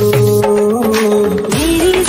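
Background music with long held notes that shift in pitch about three-quarters of the way through.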